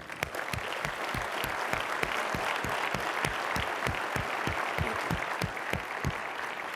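Audience applauding steadily, with one nearer pair of hands clapping at an even beat of about three to four claps a second.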